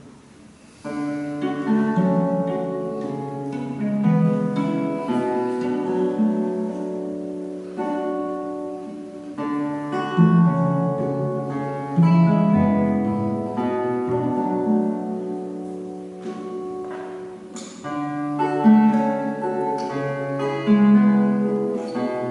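A classical guitar and a cello playing a duet: plucked guitar notes over long bowed cello notes. The music begins about a second in.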